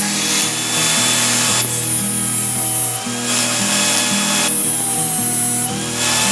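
Angle grinder with a thin abrasive disc grinding the tip of a steel rod in passes of a second or two, the hiss of the grind starting and stopping as the rod meets and leaves the disc. Country-style background music plays underneath.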